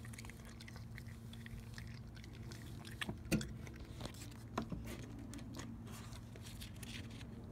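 Pet raccoon mouthing and chewing, a run of wet clicks and smacks with a few sharper clicks in the middle.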